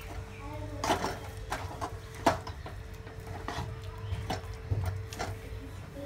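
A metal spoon scraping and knocking against a nonstick pan while roasted peanuts are stirred through sticky melted jaggery, with about seven sharp knocks at irregular intervals over a steady low hum.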